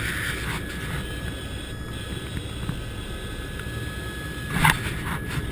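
Helicopter engine and main rotor running: a steady low rumble with a thin, steady high whine above it, picked up by a camera mounted outside the cabin. A short scraping burst comes about four and a half seconds in.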